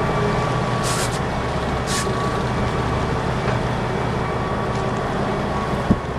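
A sportfishing boat's engines run steadily, a low drone with a constant hiss of water and wind. Two short hissing bursts come about one and two seconds in, and a single sharp knock comes near the end.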